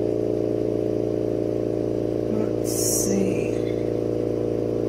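Steady, even machine hum from equipment running beside the torch, with one short burst of hiss about three seconds in.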